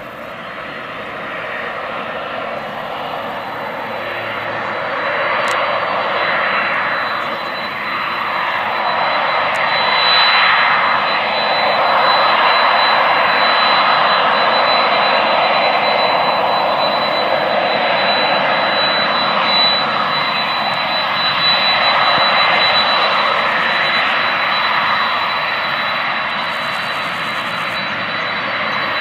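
Boeing 767-300's twin jet engines running at taxi power as the airliner turns around on the runway, a steady rushing noise with a thin high whine. It grows louder over the first ten seconds or so, as the jet swings to face the microphone, and then holds.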